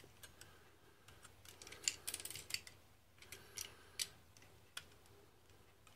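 Hobby knife blade scraping and cutting mould lines off a small plastic model part: faint, quick scratchy clicks, bunched about two seconds in and again at about three and a half to four seconds.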